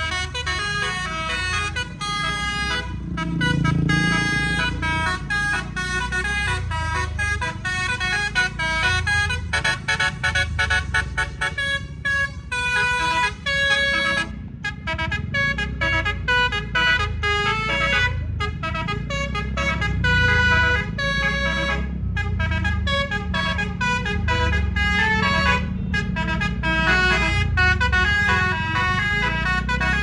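Bus telolet musical air horns playing a fast tune, one held note after another, with a quick run of rapidly repeated notes about ten seconds in, over the low rumble of the bus engine.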